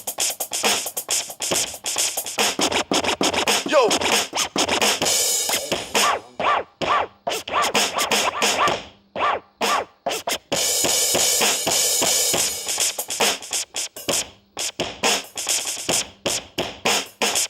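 A beat of fast, choppy drum hits with record-scratch sounds over it.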